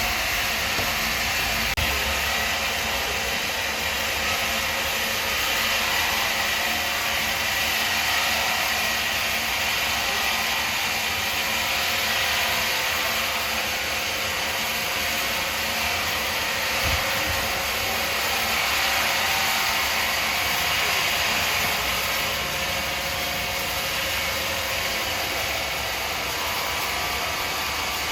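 Machinery running steadily: a constant, even noise with a faint whine, with one short low thump about 17 seconds in.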